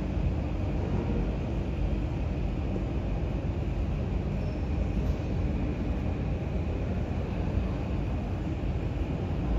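Steady low rumble of airport apron noise from aircraft and ground vehicles, with a faint steady hum and no distinct events.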